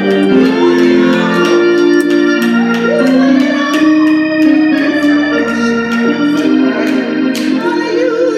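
Organ playing held chords that change every second or so, with light regular ticks of percussion over them.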